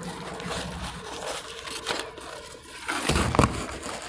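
Eating sounds: chewing with the crinkle and rustle of paper food wrappers being handled, and a louder bump of handling about three seconds in.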